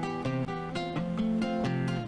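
Background music: guitar playing a run of plucked notes that change several times a second.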